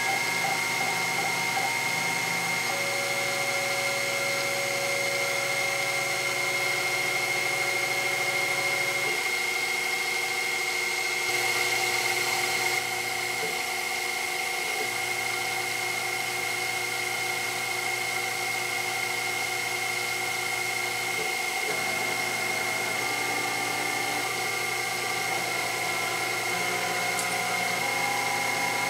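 Sherline CNC mill cutting Delrin on its rotary fourth axis: the spindle gives a steady high whine while the stepper-driven axes hum in tones that shift pitch every few seconds as the moves change. A louder hiss rises for a second or two about eleven seconds in.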